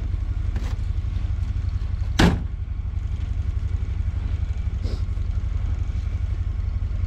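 A vehicle engine idling with a steady low drone, and a single loud clunk a little over two seconds in.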